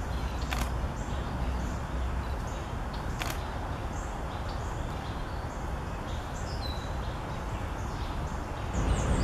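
Faint, distant songbird calls, including one short falling whistle, over a steady low rumble of background noise. Two sharp taps come about half a second in and again about three seconds in, and near the end the rumble grows louder.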